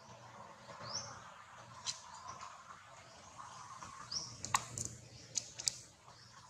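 Two short rising bird chirps, with a few sharp clicks in the second half.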